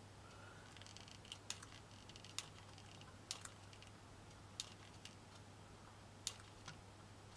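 Faint, irregular sharp clicks, about one a second, from a hot glue gun being worked while a small pink flower is glued on, over a steady low hum.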